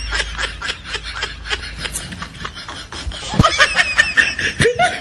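Laughter: a quick, even run of short ha-ha sounds, with a few voice sounds near the end.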